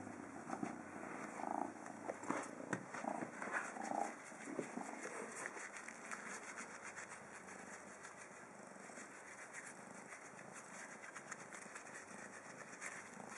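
A kitten purring faintly while being stroked, with a few short soft sounds in the first few seconds.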